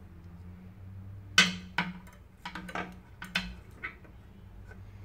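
A handful of sharp metallic clinks and taps from metal tools and the soldering iron being handled during soldering work, clustered between about a second and a half and four seconds in, over a faint low hum.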